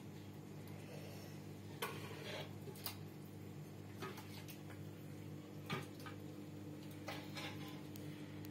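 Metal ladle or spoon clinking lightly against a steel cooking pot and dishes as food is scooped out, a handful of scattered knocks. A steady low hum runs underneath.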